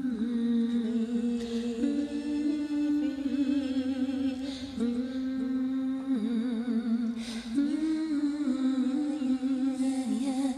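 Wordless female vocal music: held humming notes with vibrato, in a few layered vocal parts.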